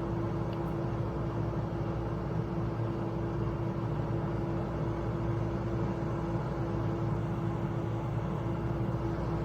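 HYSapientia 24L air fryer oven running: a steady fan hum with one constant tone over a low rumble.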